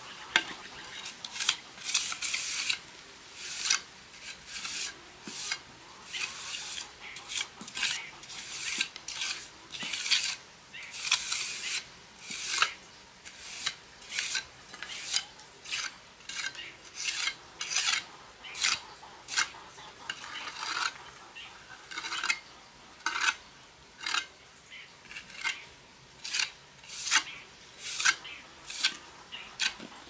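Repeated rasping, scraping strokes of a hand tool working material, about one to two strokes a second at an uneven pace.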